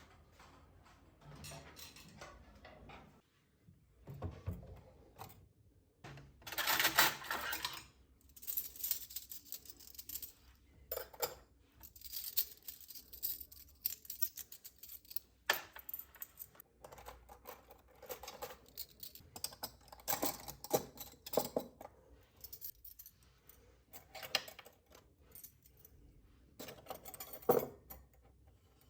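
Tableware being handled: scattered light clinks, taps and clatters, with a louder burst about seven seconds in and another near the end.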